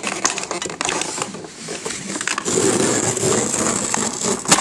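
Cardboard box flaps and a plastic clamshell tray crackling and rustling as a CPU cooler is worked out of its packaging, with a denser sliding rustle in the second half and one sharp snap near the end.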